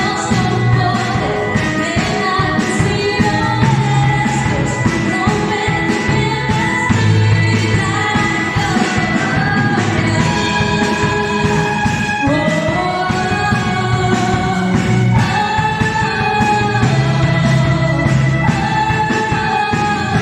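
Worship song with a sung vocal over a full band accompaniment with a steady beat.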